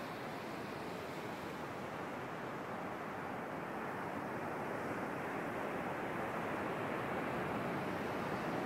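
Steady wash of ocean surf breaking on a beach, slowly growing louder.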